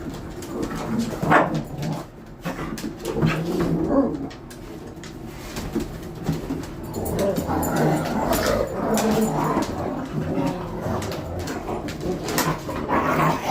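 Dogs play-fighting, with continual dog vocalising, barks and whines, and scuffling clicks.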